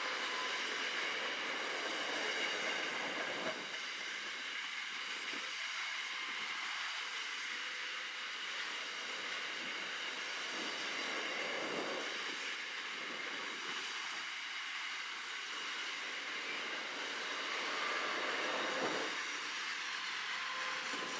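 Container wagons of a long intermodal freight train rolling past: a steady noise of steel wheels on rail, with a few heavier thuds as wheelsets go by.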